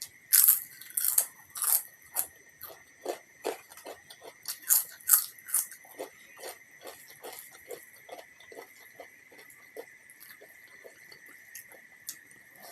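Close-miked biting and chewing of crunchy food, with the loudest crunches in the first couple of seconds and again around the middle, then a steady run of softer chewing crunches.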